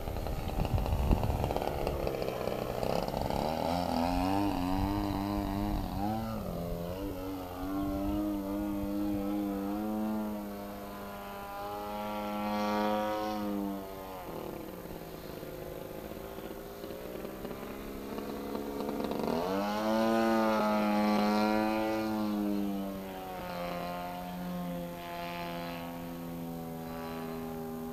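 Engine of a radio-controlled Edge 540 aerobatic model plane in flight, its pitch rising and falling as it is throttled through manoeuvres and passes overhead, swelling loudest about two-thirds of the way through. Wind rumbles on the microphone at the start.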